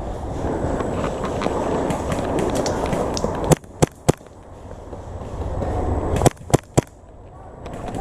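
Sharp single cracks of airsoft guns firing: two about halfway through, then three in quick succession, about a quarter second apart, near the end. They come over a rustling, scraping noise that swells and fades.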